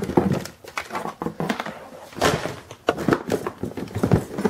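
Rummaging in a cardboard box of household goods: irregular knocks, clatter and rustling as plastic appliances and tubing are moved and set down.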